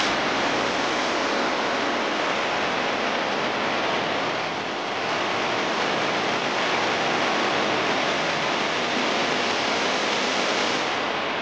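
Shallow river rushing and splashing over rocks, a steady, even rush of water.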